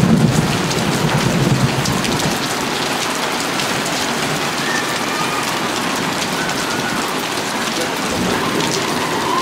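Steady rain falling in a thunderstorm, a dense hiss of many small drop hits. A low rumble of thunder fades out over the first two seconds.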